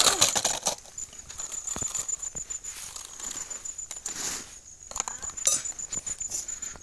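Plastic toy trucks scraping and clattering over dry dirt as they are pushed and handled, with scattered small clicks and knocks. A faint steady high pulsing tone runs underneath.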